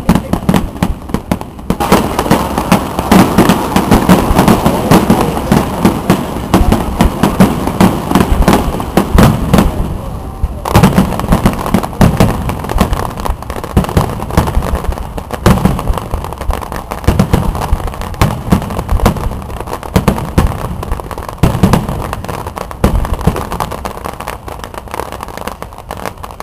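Fireworks display: a rapid, continuous barrage of bursts and crackles, with heavier booms every few seconds.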